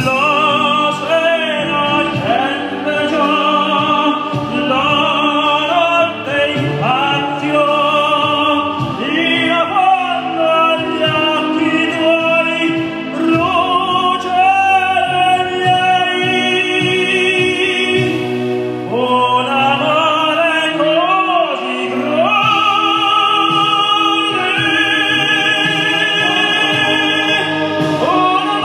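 Operatic tenor voice singing a lyrical Italian song in a full, classical style over instrumental accompaniment, with long held notes and strong vibrato.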